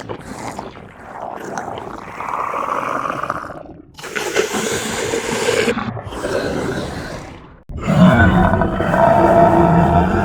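Horror sound effects: a run of growling, roaring creature-like sounds that change abruptly about 4 seconds in. About three-quarters of the way through, a louder, denser sound with several held pitches cuts in.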